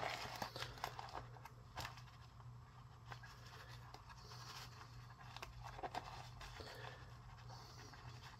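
Faint snips and rustles of a decal sheet being cut out with scissors and handled, a scattering of small clicks over a few seconds.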